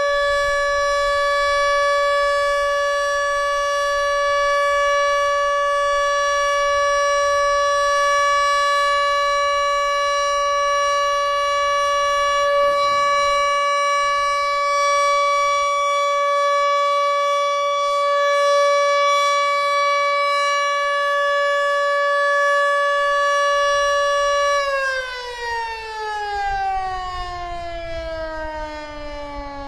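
Siro-Drone outdoor warning siren sounding its steady alert tone at a constant pitch. About 25 seconds in it winds down, the pitch falling away steadily to the end.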